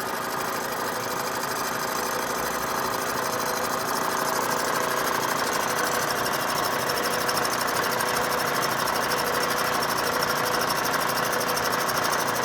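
Milling machine running steadily while boring out the bore of a router base, the spindle and cut making a steady mechanical whine with grinding cutting noise. The sound grows a little louder about four seconds in as the cut continues.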